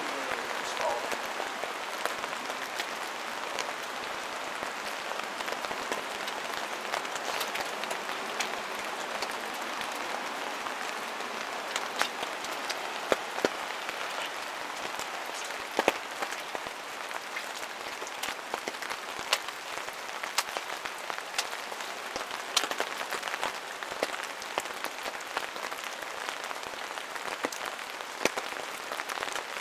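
Steady rain falling through forest, an even hiss with scattered sharp ticks of single drops striking close by.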